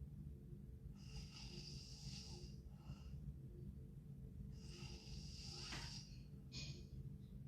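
A sleeping girl breathing heavily with a light snore: two long, noisy breaths and a short one near the end, over a faint steady low hum.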